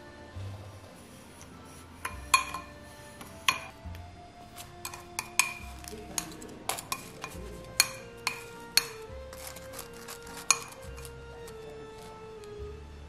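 Metal tongs clinking against a glass bowl while turning bread in cinnamon sugar: a string of sharp, ringing clinks starting about two seconds in and stopping near the end, over soft background music.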